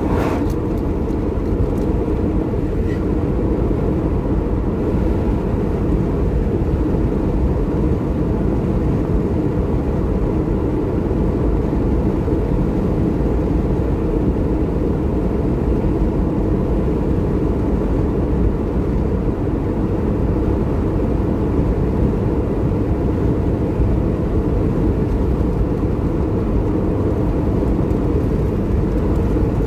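Steady road and engine noise heard from inside a car cabin cruising on a tar road. Right at the start there is a brief rush of noise as an oncoming vehicle towing a caravan passes.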